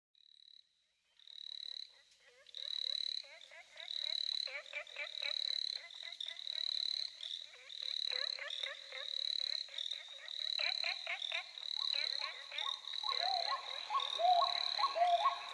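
Chorus of frogs croaking in rapid trills, with a high chirp repeating about once a second over them. A lower, pitched call joins about thirteen seconds in and repeats steadily.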